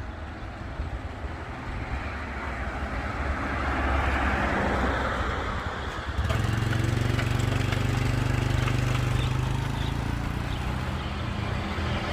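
Highway traffic: a passing vehicle's noise swells and fades, then about halfway through a steady low engine hum sets in.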